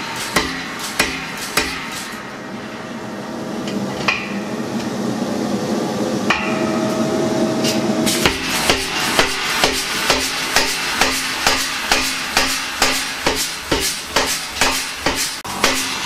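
Homemade pneumatic power hammer striking a red-hot steel bar between its dies, first over a hand-held round-bar tool, then directly on the steel. A steady run of blows stops about two seconds in, and a steady rushing noise builds with only a few blows. About eight seconds in the hammering resumes at about two to three blows a second.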